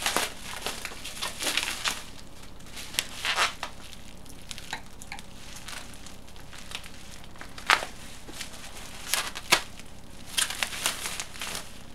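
Packaging being handled during the unboxing of a 3D printer: irregular crinkling, rustling and crackling, with a few sharper crackles in the second half.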